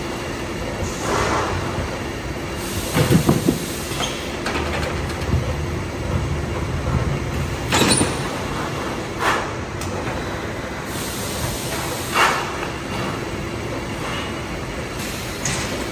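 Rock wool production line machinery running: a steady industrial hum and rumble, with several short, louder bursts of clatter and hiss.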